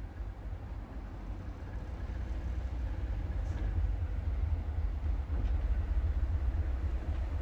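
Train on a heritage railway: a deep steady rumble that slowly grows louder, with a couple of faint clicks about halfway through.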